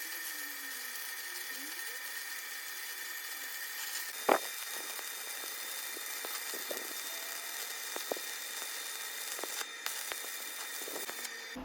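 Stick (arc) welding: a steady crackling hiss from the electrode arc, with scattered pops and one louder pop a little over four seconds in. The arc stops just before the end.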